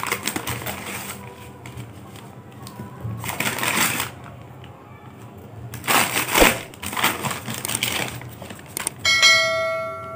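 Paper wrapping crinkling and tearing in short bursts as a food parcel is unwrapped by hand. About nine seconds in, a bright bell chime sound effect rings once and fades.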